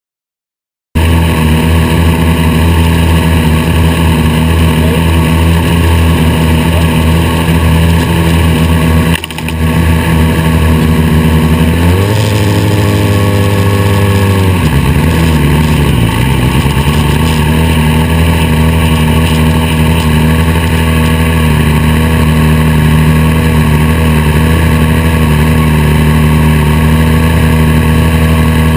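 Formula SAE race car's engine idling loud and steady, starting about a second in. About halfway through, the revs rise, hold for a couple of seconds, then drop back to idle.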